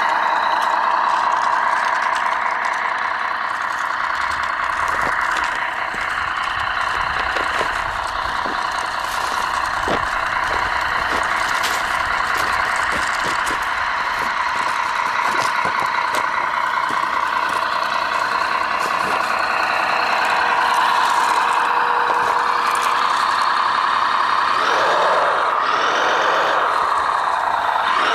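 Radio-controlled model Peterbilt logging truck driving, its drive and sound running steadily with scattered clicks and crackles. Near the end the pitch rises and falls a few times as it changes speed.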